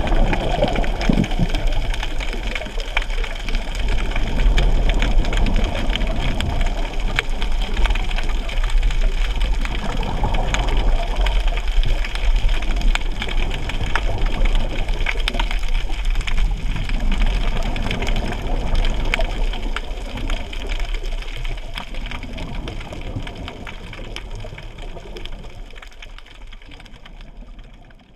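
Underwater ambience picked up by a submerged camera: a steady low rumble and water noise with scattered faint clicks, fading out over the last few seconds.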